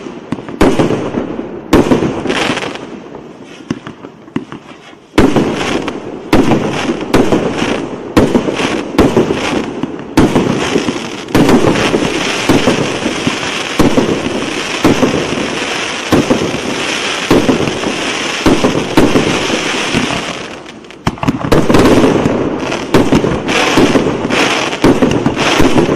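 A 215-shot cake firework firing: a rapid series of sharp launch shots and aerial bursts. From about ten to twenty seconds in, a steady sizzle runs under the shots. After a brief dip, a faster volley follows near the end.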